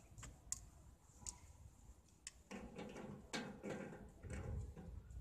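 Faint, irregular clicks and light knocks from handling a portable arc welding machine's front-panel controls and cable connections, over a low rumble.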